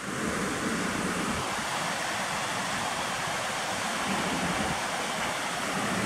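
Steady rushing of a fast mountain river running full and in spate, water pouring over rocks and small cascades.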